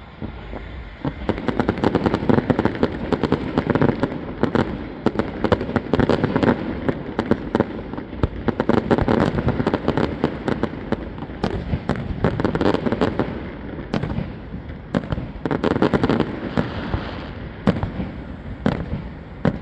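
Fireworks display: a dense barrage of aerial shells bursting in quick succession, with crackling and rumbling echoes, building about a second in and thinning a little near the end.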